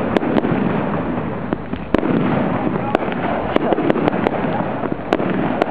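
Fireworks display: aerial shells bursting in a rapid, irregular string of sharp bangs and pops over a continuous noisy din. The loudest bang comes about two seconds in, and a tight cluster of reports follows around four seconds in.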